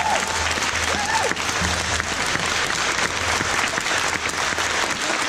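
Audience applauding at the end of a speech.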